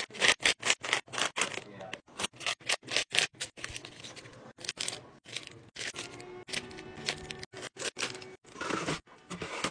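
Plastic snack wrappers and bags crinkling and rustling as packaged snacks are handled and dropped into containers. The sound comes in a rapid string of short, sharp bursts with abrupt silent breaks between them.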